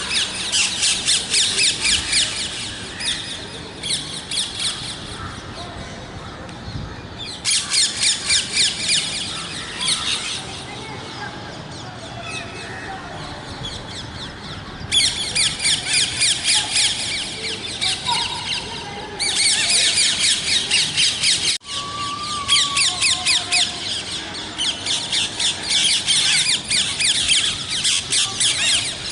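Parrots calling in harsh, rapid squawks, in spells of a few seconds each with quieter gaps between, the longest running through most of the second half.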